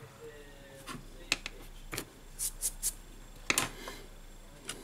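Light clicks, taps and short scrapes of plastic as a phone's plastic display frame is cleaned with a plastic pry tool on a cork mat, a slightly longer scrape about three and a half seconds in.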